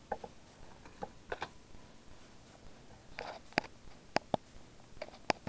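Trading cards being handled and flipped one by one: scattered light flicks and clicks, with a few sharper snaps in the second half.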